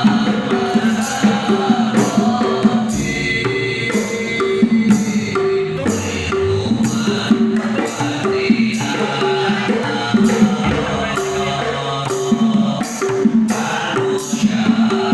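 Devotional sholawat music: hand drums and jingles keep a steady, even beat under a singing voice.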